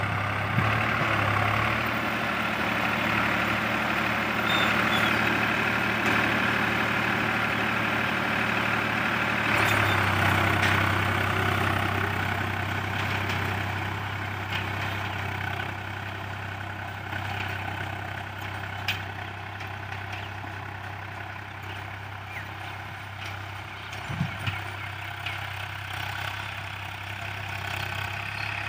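Tractor engine running steadily, louder for the first ten seconds or so and then easing to a lower level, with a few short clicks near the end.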